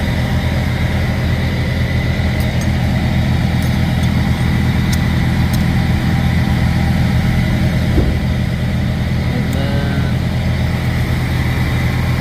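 Semi-truck diesel engine idling steadily, with a few light clicks and a small knock about eight seconds in.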